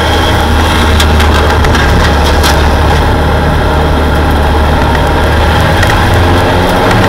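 Super mini truck's engine running steadily at a low, even pitch, heard from inside the cab while lapping the track. A couple of sharp rattles cut through about a second and two and a half seconds in.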